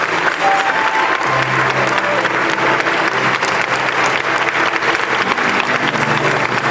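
Audience applause: dense, steady clapping, with a few held keyboard notes sounding faintly underneath.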